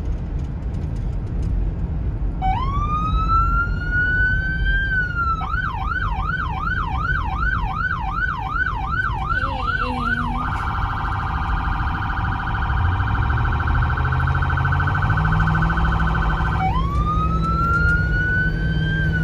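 An American police car's electronic siren cycling through its tones. About two and a half seconds in, a wail rises. It switches to a fast yelp of roughly two sweeps a second, then to a very rapid warble, and near the end goes back to a rising wail that starts to fall. Underneath is a steady rumble of engine and road noise.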